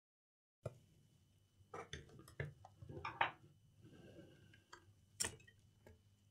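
Faint scattered clicks and taps of a laptop's LCD panel and plastic lid parts being handled as the panel is worked loose and lifted out, the sharpest tap about five seconds in.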